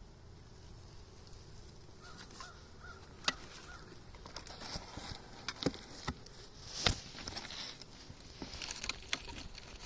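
Scattered knocks and clunks of a wooden beehive's cover being closed up and a rock being set back on top of it. A few faint short bird calls come about two seconds in.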